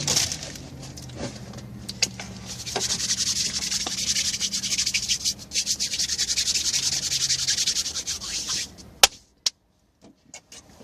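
Fast, scratchy rubbing noise over a low steady hum, with two sharp clicks near the end before the sound cuts out.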